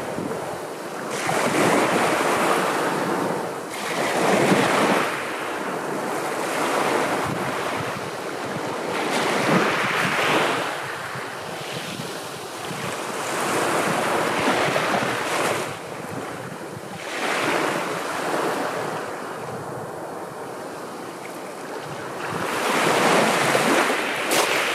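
Sea waves breaking and washing on the shore, rising and falling in surges every few seconds, with a steady wash between them.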